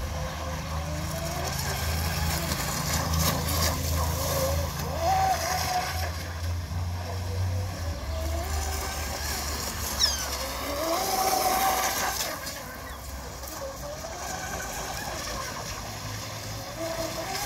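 Radio-controlled speedboat's motor whining across the water, its pitch rising and falling every few seconds. A brief sharp tick about ten seconds in.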